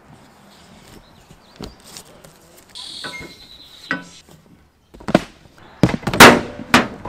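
Security cable for a rooftop tent being pulled through the tent's straps, with scrapes and rustles. In the last two seconds it gives several sharp clanks and knocks, the loudest about six seconds in.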